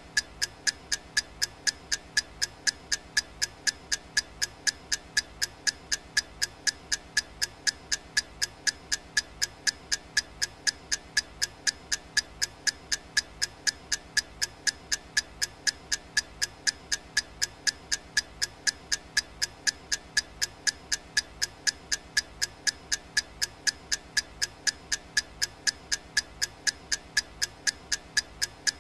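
Clock ticking sound effect of a countdown timer: sharp, evenly spaced ticks, several a second, steady throughout.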